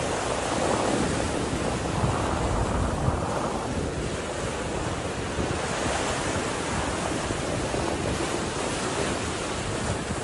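Floodwater rushing through a breach in a river dam: a steady, dense rush of pouring water and spray, with wind buffeting the microphone.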